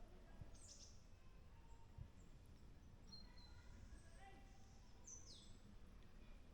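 Faint bird calls over a quiet, low background hum: a high call that drops quickly in pitch about half a second in, a few short whistled notes around three to four seconds, and another falling call just after five seconds.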